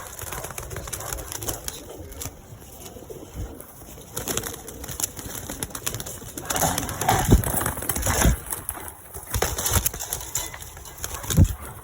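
Pigeons cooing and shuffling about the loft, with scattered clicks and a few louder thumps in the second half.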